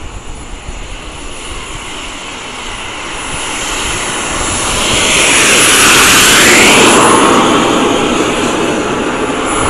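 Small model turbojet engine on a radio-controlled Revo truck, a steady jet roar with a high whistle. It grows louder as the truck approaches, is loudest as it passes about six seconds in, and then drops in pitch and fades a little as it drives away.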